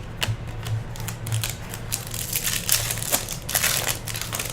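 Wrapper of a 2017 Topps Chrome baseball card pack being torn open and crinkled by hand: a few separate clicks and rustles at first, then dense crinkling from about two seconds in until near the end.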